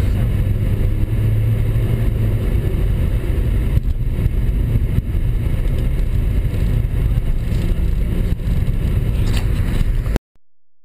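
Car driving at a steady pace, its engine and tyre noise heard from inside the cabin. The sound cuts off suddenly near the end.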